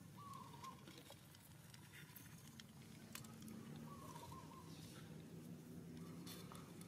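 Near silence: faint outdoor ambience with a few soft clicks and two faint short chirps.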